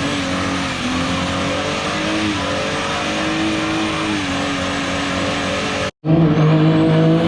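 Car engine held at high revs during a burnout, with the hiss of spinning tires over it. The pitch wanders slightly. About six seconds in, the sound cuts out for an instant and comes back louder with the engine held at a steady pitch.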